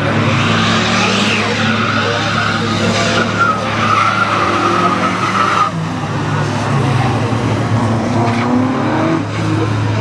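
Citroën Saxo rally car sliding through a wet bend, its engine running hard while the tyres squeal for about four seconds; the squeal cuts off suddenly. Near the end an engine rises in pitch as a car accelerates.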